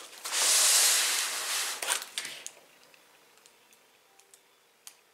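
Foam packing rubbing and scraping against the cardboard box as a layer is lifted out: a hissing rub of about two seconds, ending in a couple of sharp clicks, then a few faint taps.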